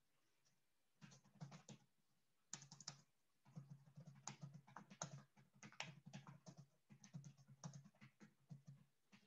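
Faint typing on a computer keyboard: irregular runs of quick keystrokes starting about a second in, with short pauses around two and three seconds in.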